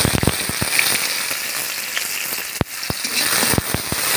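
Chopped onions sizzling in hot oil in a steel kadhai, a steady hiss with frequent sharp crackles and pops, the sharpest about two and a half seconds in.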